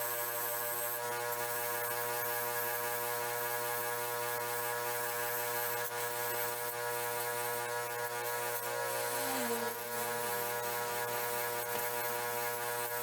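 Steady electrical hum made of many evenly spaced tones, with a brief sliding tone about nine seconds in.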